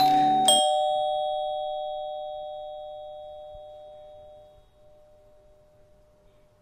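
Doorbell chime ringing a two-note ding-dong, a higher note then a lower one about half a second later, both ringing on and slowly fading over several seconds.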